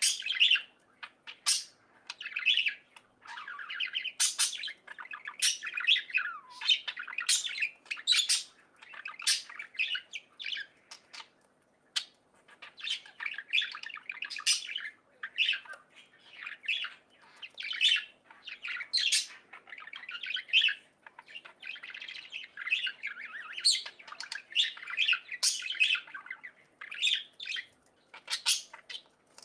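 Budgerigars chirping and chattering: a steady stream of short chirps, squawks and warbles, several a second.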